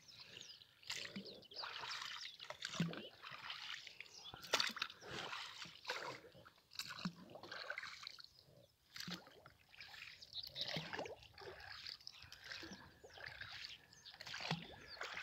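Oars of an inflatable rowing boat dipping into the lake and splashing, an uneven run of swishes and drips roughly every second.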